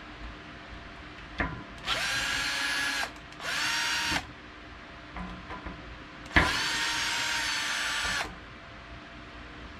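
Power drill with a Torx bit unscrewing the bolts of a bike's disc brake rotor, in three short runs. Each run spins up quickly to a steady whine; the last is the longest, about two seconds.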